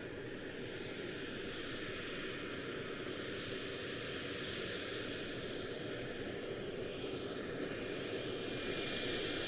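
Learjet's jet engines heard from outside as the jet taxis out: a steady whine and rush with faint high tones, growing slightly louder toward the end.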